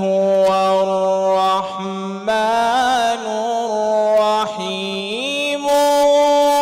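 A male Quran reciter chanting melodic recitation into a microphone. He draws a single syllable out in long held notes that step up and down in pitch, climbing higher about five seconds in.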